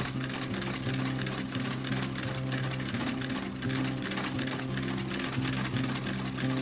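Industrial shoe-stitching machine running, its needle stitching the boot's welt or sole in a rapid, even clatter over the steady hum of its motor.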